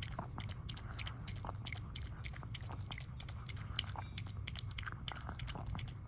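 A Pomeranian lapping milk from a ceramic bowl: a quick, unbroken run of small wet tongue clicks, a few each second.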